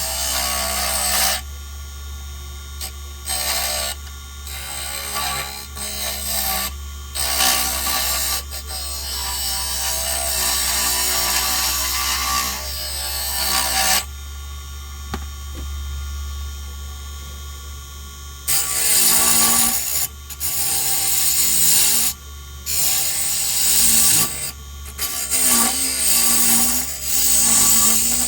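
Wood lathe running with a steady low hum while a tool works a spinning pine lure blank, giving irregular bursts of scraping, louder and more frequent in the last ten seconds.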